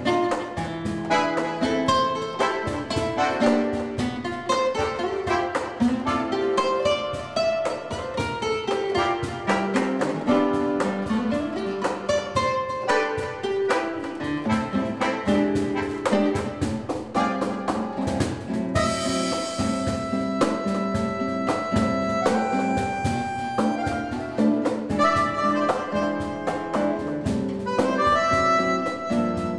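Small jazz ensemble playing live: a vibrandoneon, a keyed free-reed wind instrument with a reedy, sax-like tone, carries the melody over acoustic guitar and light percussion. A brief bright cymbal-like splash sounds a little past the middle.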